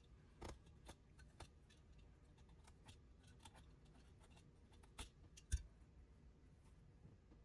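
Faint, scattered clicks and taps of hand tools being handled during a carpet repair, with a sharper knock about five and a half seconds in.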